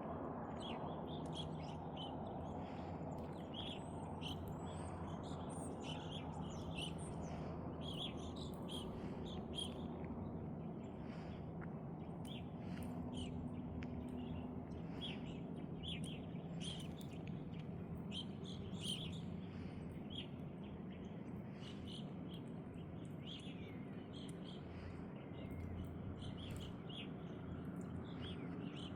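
Small birds chirping, many short, quick calls one after another, over a steady low background rumble.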